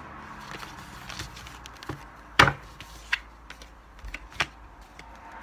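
Tarot cards being handled by hand: a scatter of sharp card snaps and taps at irregular intervals, the loudest about two and a half seconds in.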